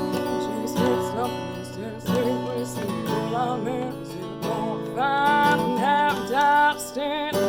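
Acoustic guitar strummed under a woman singing a country song, her voice holding a wavering note with vibrato late on.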